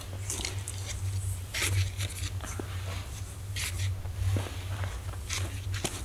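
Snow crunching and scraping as a kettle is pushed and scooped through a snowdrift to fill it with snow, in several short crunches a second or two apart.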